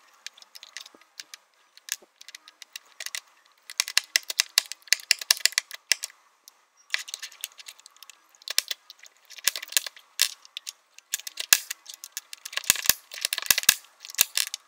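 Hard plastic parts of a 3D-printed hand clicking and rattling in rapid irregular bursts, with short pauses between the bursts.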